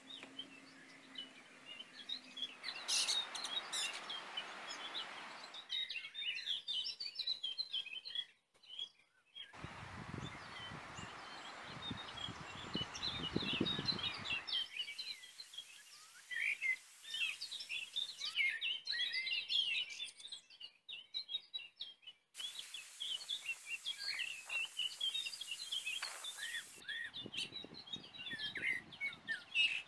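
Small songbirds chirping and twittering throughout, over a background hiss that changes abruptly several times. A stretch of low rumbling noise, like wind on the microphone, comes about ten seconds in and lasts about four seconds.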